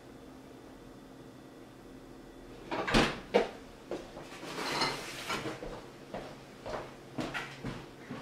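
Two sharp knocks as a box is lifted off a kitchen countertop about three seconds in, followed by a short rattling scrape, then footsteps on a hard floor walking away.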